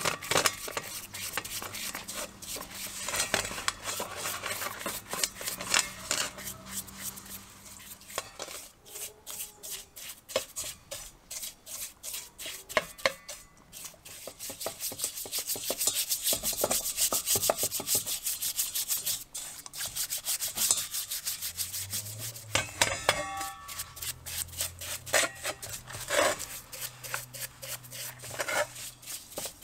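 Stiff-bristled brush scrubbing rusty steel parts in a liquid bath in a stainless steel bowl: rapid, scratchy back-and-forth strokes, with now and then a sharper clink of metal.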